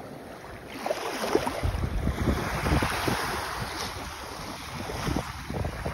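Wind buffeting the microphone over the wash of surf on a beach, picking up about a second in.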